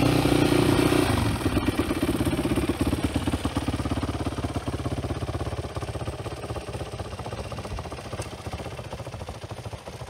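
Yamaha WR450F 2-Trac's single-cylinder four-stroke engine running with an even, rapid beat, growing gradually quieter toward the end.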